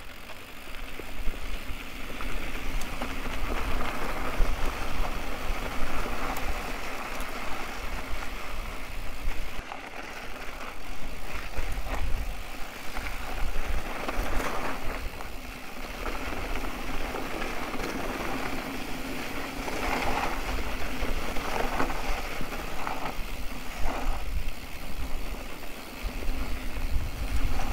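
Specialized Turbo Levo electric mountain bike rolling down a loose, rocky dirt road. The tyres crunch over gravel and the bike rattles over bumps, in clusters about halfway through and again later, over a steady low rumble of wind on the microphone.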